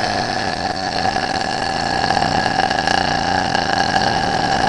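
A girl's long, deliberate burp of swallowed air, held at a steady pitch without a break.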